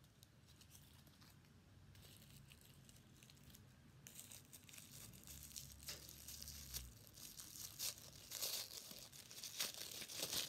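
A small crinkly plastic wrapper being torn and crinkled open by hand. It is faint at first and gets busier and louder over the last few seconds.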